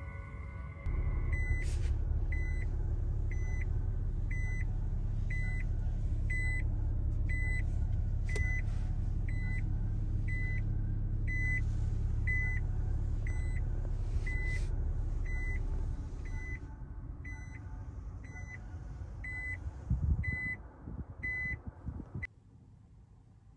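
Nissan Kicks e-POWER's in-cabin reverse warning beeping, short high beeps about two a second, over a steady low vehicle rumble that eases off about two-thirds of the way in. A few thumps near the end, then the beeping stops.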